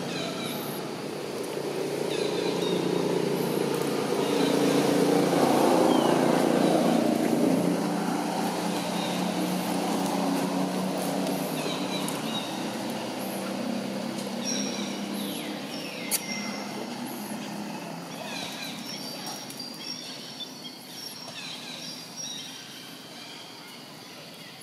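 A motor vehicle's engine running nearby, swelling over the first few seconds and then slowly fading away, with birds chirping faintly in the background.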